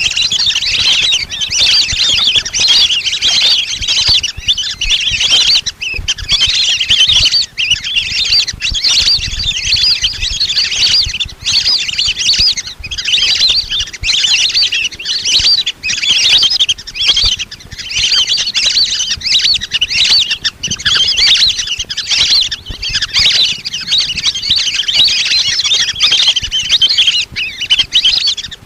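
A flock of lesser whistling ducks calling, a dense unbroken chorus of high, wavering whistles, as used for a hunting lure call.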